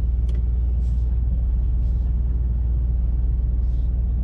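Mercedes-AMG E63 S twin-turbo V8 running steadily at low revs, a deep even rumble heard from inside the cabin, in gear and held at the line before a launch.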